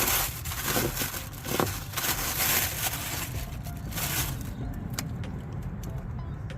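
Rustling, crackling and scraping as the new wheel hub's packaging is handled, with sharp clicks among it; it gets quieter about four and a half seconds in, leaving scattered light clicks and knocks.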